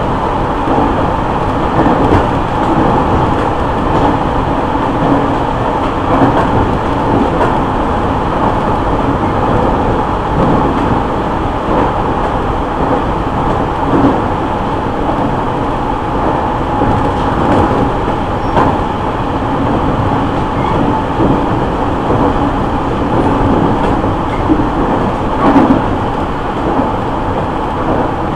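JR East E501 series electric train running at steady speed, heard from inside the end of a motor car fitted with the original Siemens VVVF inverter: a constant rumble of wheels on rail with a steady whine and a few sharp knocks from the track.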